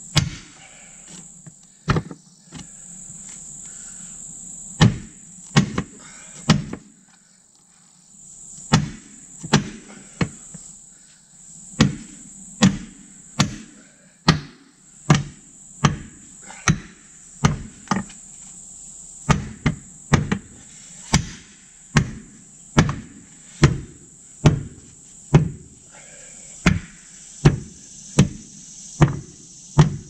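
Repeated hammer blows on the steel split lock ring of a Dayton-style truck wheel as it is driven down under the rim's lip: irregular at first with a short pause, then steady at about one blow every 0.7 s. Crickets chirr steadily behind.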